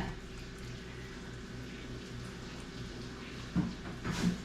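Quiet kitchen background with a steady low hum, then a soft knock about three and a half seconds in and a louder clatter at the very end.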